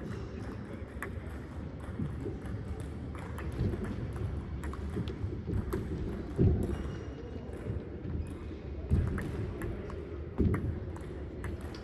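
Table tennis ball clicking sharply against the paddles and table during rallies, about two clicks a second, over steady hall noise, with a few louder low thuds.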